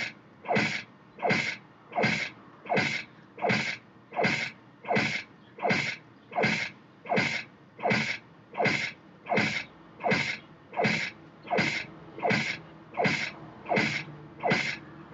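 Cartoon punch sound effect, a blow landing with a short cry, repeated at a steady pace about every three-quarters of a second, some twenty times. Each hit is brief and drops quickly in pitch.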